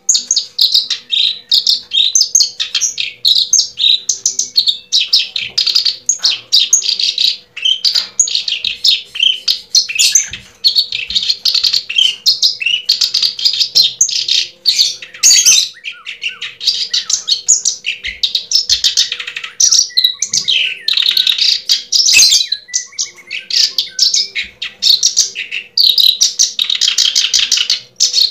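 A bird chirping and twittering rapidly, almost without pause, over a faint steady hum.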